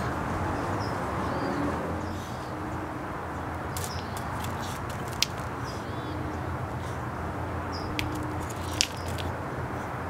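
Steady outdoor background rumble, with a few sharp clicks of smooth beach stones being set down and knocked on a concrete sidewalk, the loudest about five and nine seconds in.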